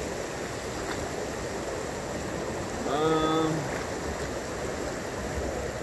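Steady rush of a rain-swollen creek running high over a small rapid of rocks. About three seconds in, a man's voice makes a brief sound.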